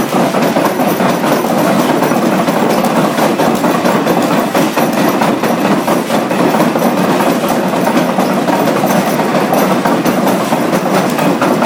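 Three-stamp mill running, its stamps dropping one after another to crush ore in the mortar box: a loud, continuous clatter of heavy metal impacts.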